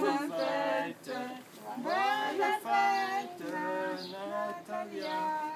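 Several voices singing a birthday song together, in long held notes, to a girl before she blows out the candles on her cake.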